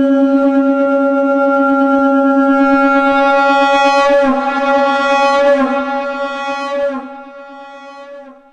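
Conch shell (shankh) sounded as one long note pitched at C#, rich in overtones. It holds steady, wavers a little after about four seconds, then weakens and fades out near the end.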